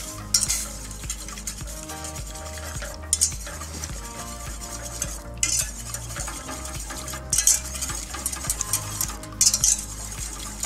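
Wire whisk stirring a liquid barbecue sauce in a stainless steel saucepan: swishing strokes with metal scraping against the pan, coming in bursts every second or two.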